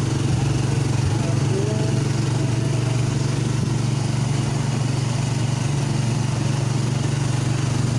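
Small motorcycle engine of a motorized tricycle running steadily, heard from inside the passenger sidecar.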